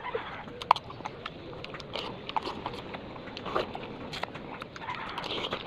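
Someone chewing papaya close to the microphone: frequent short mouth clicks and smacks, with a few brief noisier chewing stretches.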